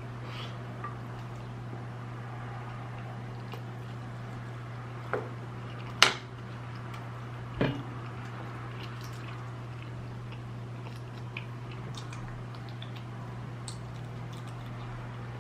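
Close-miked eating of shrimp and rice: soft wet chewing and mouth sounds, with three sharper clicks about five, six and seven and a half seconds in, over a steady low hum.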